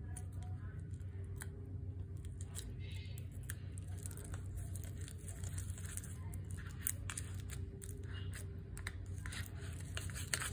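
Clay, dish soap and hot water being stirred in a container: irregular clicks, scrapes and scratchy noises of the utensil against the container, over a steady low hum.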